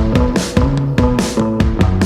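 Background music with a steady beat and a changing run of pitched notes.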